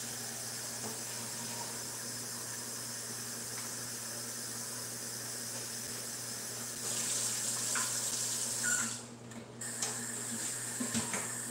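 Hot water running from a kitchen tap into a plastic cup. It runs steadily, gets louder and brighter about seven seconds in, and stops abruptly about nine seconds in. A few light knocks follow near the end.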